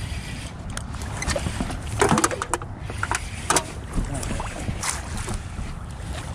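Water and wind around a small fishing boat as a steady low rumble, broken by scattered short knocks and clicks of gear being handled in the boat.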